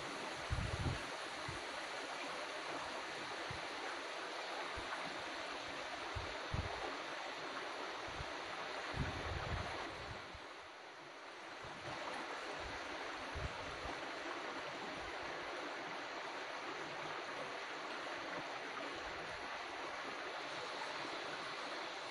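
Steady rush of stream water flowing under a bridge, briefly quieter about halfway through, with scattered low thumps.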